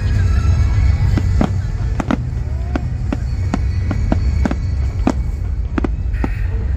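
Aerial fireworks going off in a display finale: about a dozen sharp bangs and cracks, irregularly spaced, over a steady low rumble, with the show's music playing alongside.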